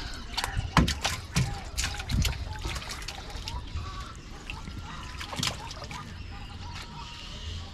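Fishing net being hauled by hand into a fibreglass outrigger canoe, with water splashing and dripping off the net. A quick run of sharp slaps and knocks comes in the first three seconds, then fewer.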